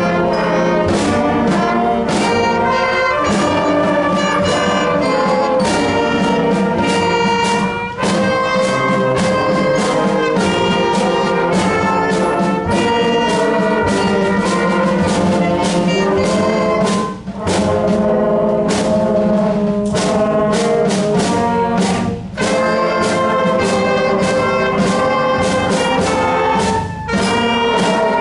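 School concert band playing a patriotic medley of Americana melodies, with brass carrying the tunes over steady drum hits. It pauses briefly between phrases a few times.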